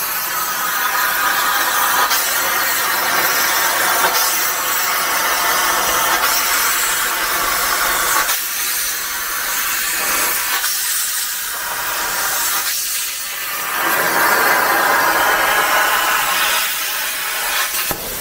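Titanium 45 plasma cutter on a Crossfire CNC plasma table cutting through metal plate: the plasma arc and its air blast make a loud, steady hiss with a whining edge. The whine thins out a few times as the torch moves, and the arc cuts off just before the end.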